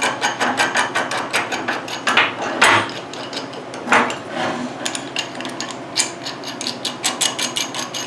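Rapid, even metal clicks and rattles, several a second, as a new steel adjusting nut is fitted and spun on the threaded shank of a vintage pipe wrench's hook jaw, with a few heavier knocks about two and four seconds in.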